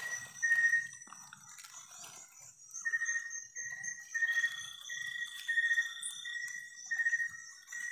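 Night chorus of calling animals at the river: a short high note repeated about twice a second, over a continuous thin high-pitched trill, with a longer held higher note for about two seconds in the middle.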